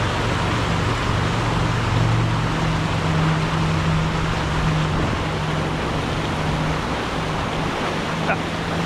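Brook water rushing steadily, with a low steady hum underneath.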